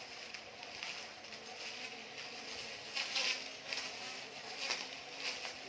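Battery-powered grass cutter's electric motor running with a steady whirring hum. Several short louder swishes of cutting rise over it in the second half.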